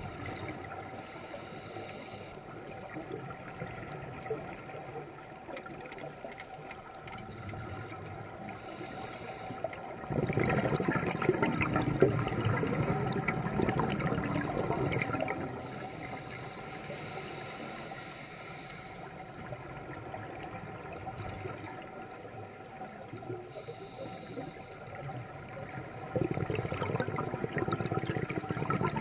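Scuba divers' regulator exhaust bubbles, heard underwater: a long spell of bubbling about ten seconds in and another near the end, over a steady underwater background with faint hissing.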